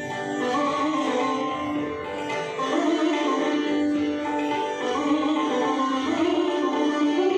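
Sitar playing a Hindustani classical melody, its plucked notes held and bending in pitch.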